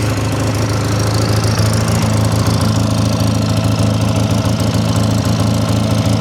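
Polaris Sportsman 600 ATV engine running steadily at high idle.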